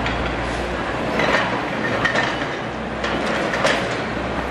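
Passenger train running away over the points: a steady wheel-on-rail rumble broken by a series of sharp metallic clanks as the coach wheels cross rail joints and switches.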